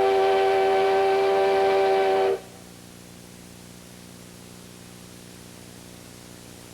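Steam locomotive whistle blowing one long, steady blast of several notes sounding together, cutting off about two seconds in. A faint steady low hum follows.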